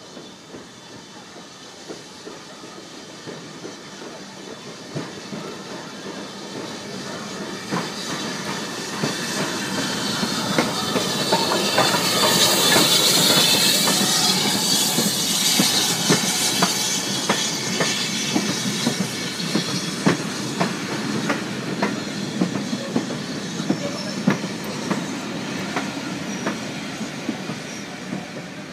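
BR Standard Class 4 2-6-4 tank locomotive and its train drawing into a station and passing close by, growing louder to a peak with a strong hiss about halfway through. The coaches then roll slowly past, with a run of clickety-clack wheel clicks over the rail joints.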